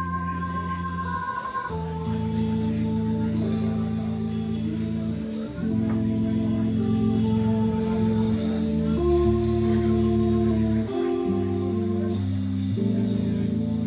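Live small-group jazz: a stage keyboard plays held, organ-like chords that change every second or two, over light drum-kit cymbal work.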